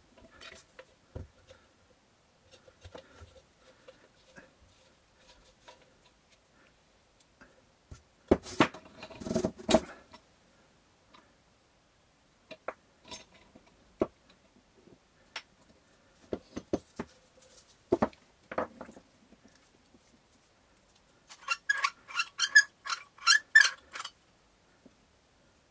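Small parts and tools being handled during bench work on an enlarger's wiring: scattered clicks and knocks, a close cluster of knocks and rustling about 8 to 10 seconds in, and a quick run of bright clinks like keys jangling about 22 seconds in.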